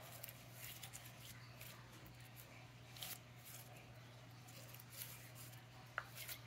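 Faint, scattered clicks and small crackles of stiff slime being pressed and stretched by hand, over a low steady hum.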